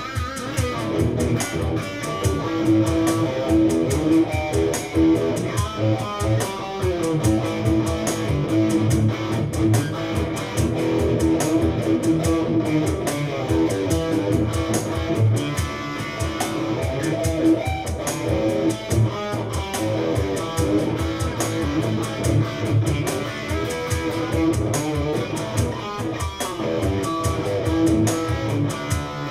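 Red electric guitar played through an amplifier in a continuous jam of picked notes and chords, with a dark but defined neck-pickup tone.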